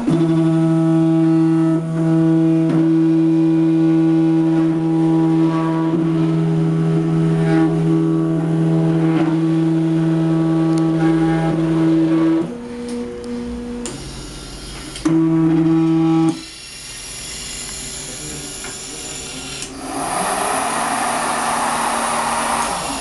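Stepper motors of an automated silkscreen printing machine running: a steady low two-note whine that holds for about twelve seconds, then shifts pitch, stops, and starts again briefly. After that the whine gives way to a hiss that grows broader near the end.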